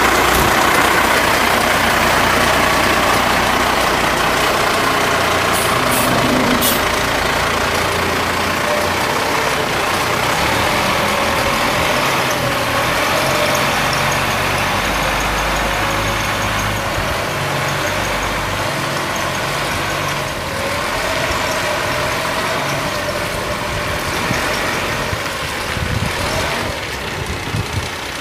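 The 1994 Ford L8000 refuse truck's Cummins 8.3-litre inline-six diesel engine running steadily.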